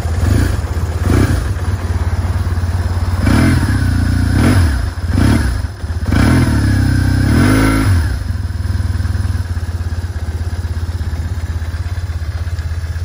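2004 BMW R1100S Boxer Cup's flat-twin boxer engine, warmed up after a cold start, is revved in a series of throttle blips, the last held for about two seconds. It then drops back to a steady idle about eight seconds in. It sounds quiet, like a completely standard BMW.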